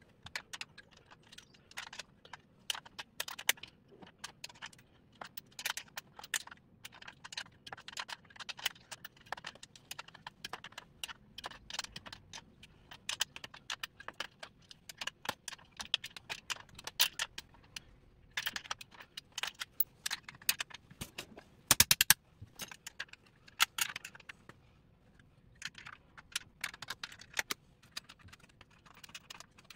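Irregular small metallic clicks, taps and rattles as a steel seat swivel base and its attached mechanism are worked on by hand and with tools to unbolt them, with a louder clatter about three-quarters of the way through.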